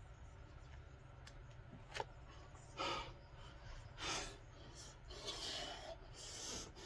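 A man's heavy breathing from the exertion of dumbbell curls: four loud exhales and gasps a second or so apart, with one sharp click about two seconds in.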